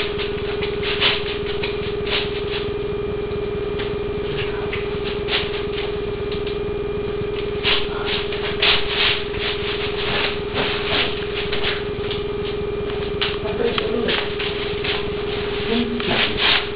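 A steady hum with irregular rustles and clicks, which grow busier near the end.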